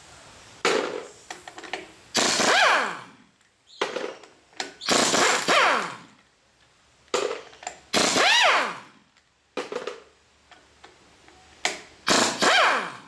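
A power tool running bolts out through a 12-point socket, in four main bursts about a second long, each rising and falling in pitch, with short clicks and taps between them.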